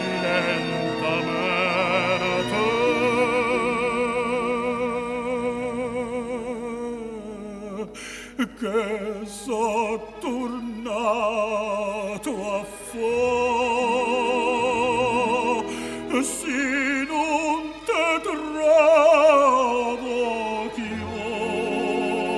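Operatic tenor singing a Neapolitan song in long held phrases with a wide vibrato, over instrumental accompaniment, in a 1949 recording; the phrases break off briefly several times.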